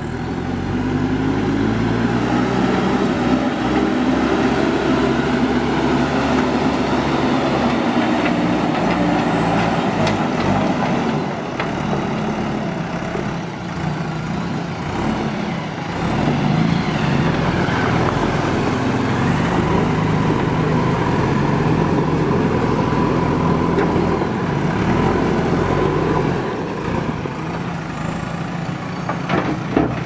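JCB 3DX backhoe loader's diesel engine running, its pitch rising and falling as the machine is driven and worked.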